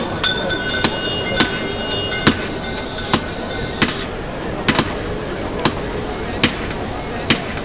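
Turkish ice cream vendor's long metal paddle striking the steel freezer stand, sharp knocks about once every 0.8 s, with a high metallic ringing that dies away about four seconds in.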